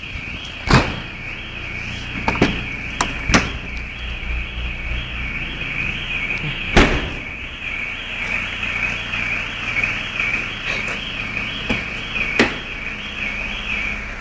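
Car alarm siren wailing, its tone sweeping up and down about twice a second, then cutting off near the end, with a few sharp knocks over it. The alarm has been set off by the sound of a car stereo.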